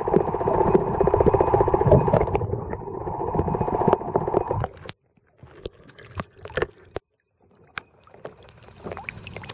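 Muffled water noise picked up by a camera held underwater: a dense rumble with rapid crackling that cuts off about five seconds in. After it come scattered soft knocks and taps with short silences between them.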